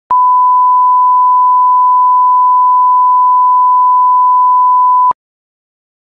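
Broadcast line-up reference tone played with colour bars at the head of a tape, a single steady pure tone for setting audio levels. It cuts off sharply after about five seconds.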